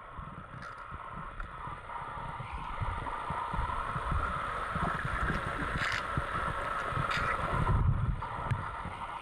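A dog paddling at the surface of a swimming pool, heard muffled underwater: a steady watery hiss over soft, low pulses from its strokes, with a few faint clicks.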